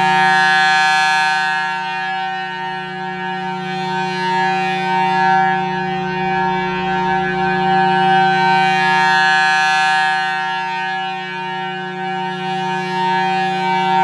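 Federal Signal Thunderbolt 1000T siren sounding a steady full-alert tone, its blower reverse-wired so that it runs backwards. The pitch holds level while the sound swells and fades about every eight seconds as the horn turns on its fast 8 RPM rotator.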